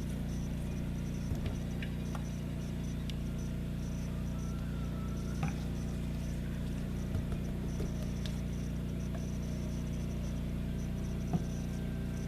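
Power washer running steadily as a continuous low drone, with a few short light clicks over it.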